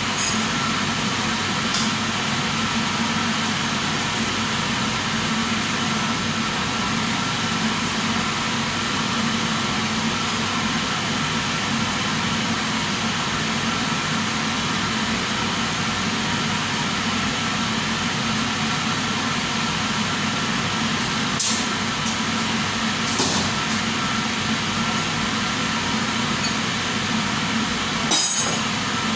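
Steady rushing hum of running machinery, with a few faint clicks in the last third.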